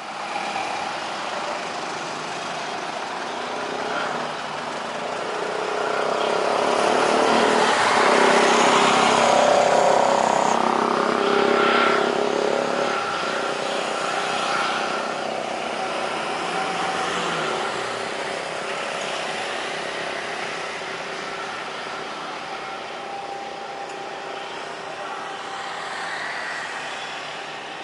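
Airbus A320 airliner's jet engines running as it rolls past on the runway after landing. The noise swells to its loudest about eight to twelve seconds in, then slowly fades as the aircraft turns off and moves away.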